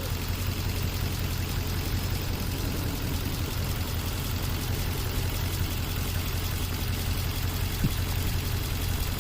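Nissan 5.6-litre V8 idling steadily, with cylinder 8 misfiring: its coil shows a tiny firing line and a high spike, and it is probably barely firing. A single light click near the end.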